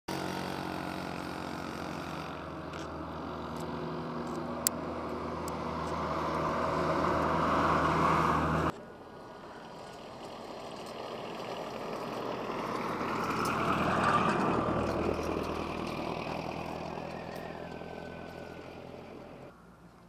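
A motor vehicle's engine running and growing louder, cut off abruptly about nine seconds in, with a sharp click about five seconds in. Then a vehicle approaches and passes by, its sound rising to a peak and fading away.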